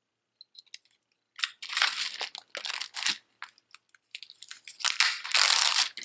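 Crinkling and rustling of thin plastic packaging being handled and opened, in a run of irregular crackly bursts that grows loudest near the end, after a few faint clicks at the start.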